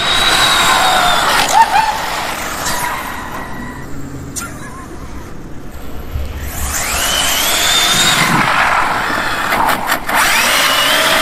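ZD Racing EX07 1/7-scale electric RC supercar at speed: its motor and drivetrain give a high whine that climbs in pitch as it accelerates. The whine is strong at the start, fades as the car runs off, then climbs again about seven seconds in and once more near the end.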